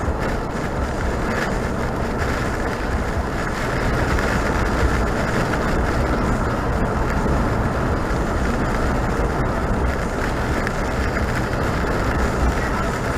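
A vehicle driving at a steady pace, with a continuous rumble of tyre and engine noise that does not change.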